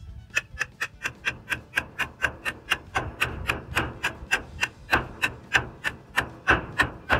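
Hammer blows driving homemade stakes into the ground to anchor the coop's frame, a quick, even run of sharp strikes, about three or four a second.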